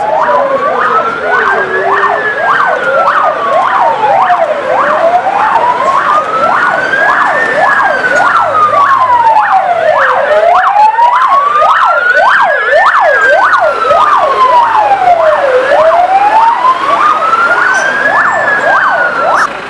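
Emergency-vehicle sirens on an arriving fire engine and the vehicles with it, two sounding together: a slow wail rising and falling about every five seconds, and a fast yelp sweeping up and down several times a second over it. Both stop just before the end.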